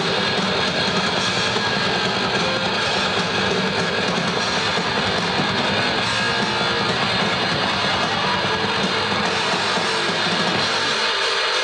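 Heavy metal band playing live: loud, distorted electric guitar with bass and drums in a dense, steady wall of sound. The low end thins out about eleven seconds in.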